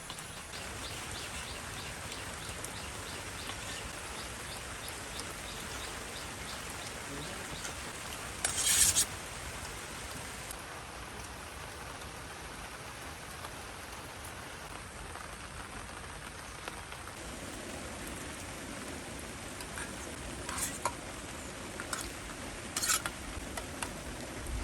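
Steady rain falling, with a few sharp knocks or clinks on top: the loudest about nine seconds in, several smaller ones near the end.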